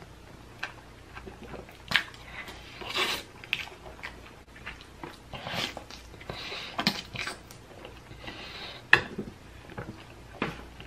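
Eating sounds: wet chewing and slurping of cheese-covered fries, with scattered short clicks of a fork against the tray.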